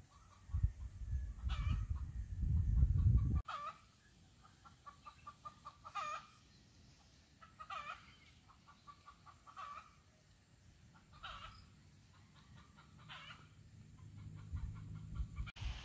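Chickens clucking, with a short call repeated about every two seconds and quick runs of clucks in between. For the first three seconds a louder low rumble of wind on the microphone sits under them, cutting off suddenly.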